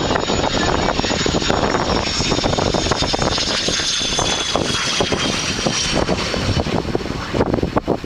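BAC Jet Provost's Viper turbojet running as the trainer passes low with its gear down: a loud roar with a high whine that slowly falls in pitch as it goes by.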